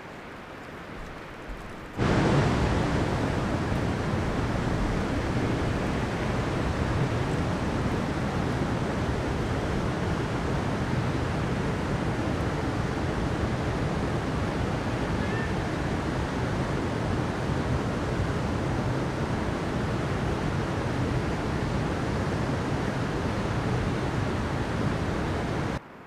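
Stream water rushing over rocks: a steady, even rushing noise without pauses that comes in abruptly about two seconds in.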